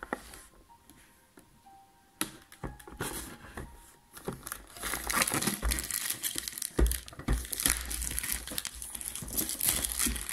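Thin plastic shrink-wrap being torn and crumpled off a cardboard figurine box. The crinkling starts about two seconds in and grows louder and busier from about five seconds, with a few low knocks as the box is handled.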